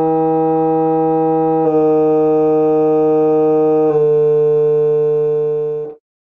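Loudspeaker playing a steady, organ-like test tone with strong overtones into a Kundt's tube. The pitch steps slightly lower twice, about a second and a half in and again about four seconds in, and the tone cuts off suddenly near the end.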